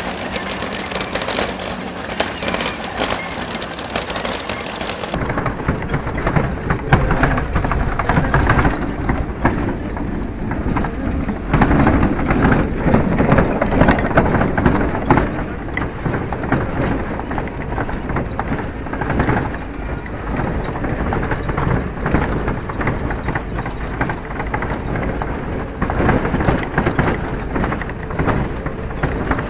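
Ride in an open-sided ranchera truck-bus: steady vehicle engine and road rumble mixed with wind noise, the low rumble coming in more strongly about five seconds in.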